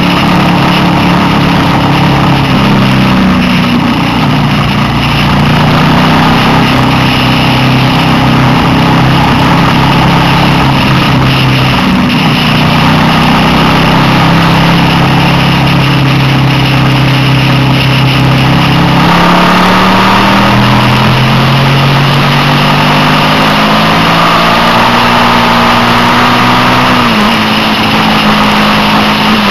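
Suzuki SV650 V-twin engine running under load, heard from on board: the revs ease off early, hold steady for several seconds, then climb about two-thirds of the way through before dropping sharply near the end. Steady wind and road rush underneath.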